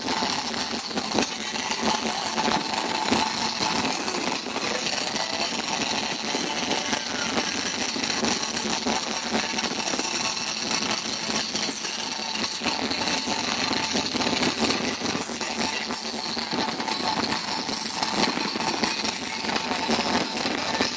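Fireworks crackling: a dense, continuous rattle of many small rapid pops with no pause.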